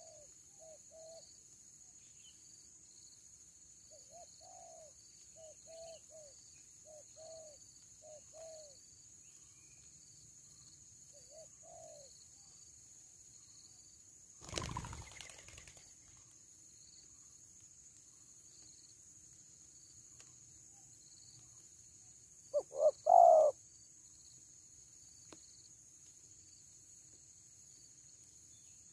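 Spotted doves cooing. Soft, repeated low coo phrases come in the first half, then a much louder, closer coo phrase comes about three-quarters of the way through.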